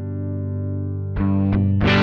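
Electric guitar played through a Joyo American Sound amp-simulator pedal, the Fender Deluxe voicing, with some overdrive. A held chord rings out, then new chords are struck about a second in and again near the end.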